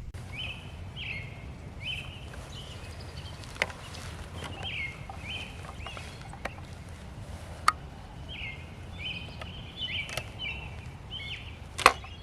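A songbird singing a long run of short, repeated chirps, with a few sharp clicks among them, the loudest near the end.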